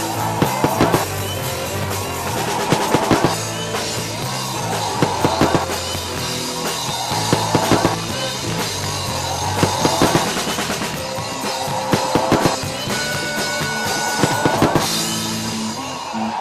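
Music with a drum kit, bass drum and snare over a steady bass line; a short cluster of quick drum hits comes round about every two and a half seconds.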